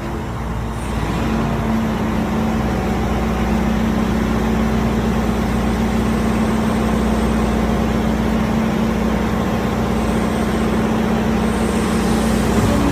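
An excavator running with a steady hum and a low rumble, getting a little louder about a second in.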